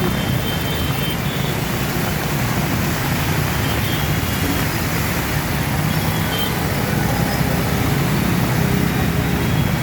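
Steady street traffic noise: motor vehicle engines running.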